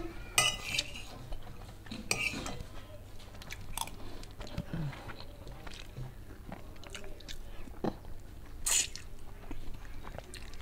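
A person eating chicken with a spoon: chewing close to the microphone, with scattered clicks and scrapes of the spoon on a china plate.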